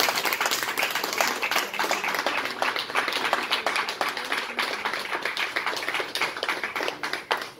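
A small group of people applauding, many hands clapping irregularly, dying down near the end.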